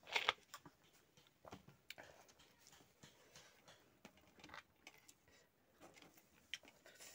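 A short sip from a mug just after the start, then faint scattered clicks and small handling noises of eating with the fingers.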